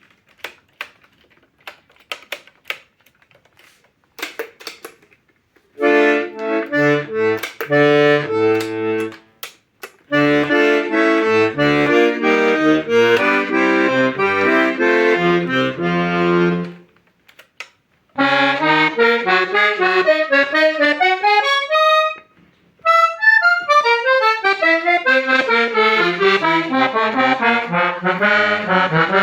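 Paolo Soprani C/F diatonic button accordion (melodeon): a few handling clicks, then chords with bass notes played on the bellows from about six seconds in, and from about eighteen seconds in quick runs of treble notes climbing up and down the scale.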